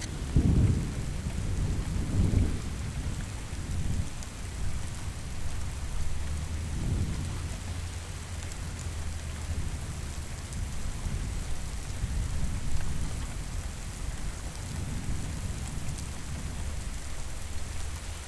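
Thunderstorm: steady rain with rolling thunder. A loud rumble comes right at the start and dies down over the first few seconds, and lower rumbles follow about seven and fifteen seconds in.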